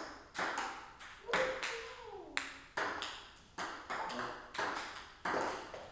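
Table tennis ball clicking against paddles and the table, about three quick hits a second in an irregular run. A brief falling tone about two seconds in.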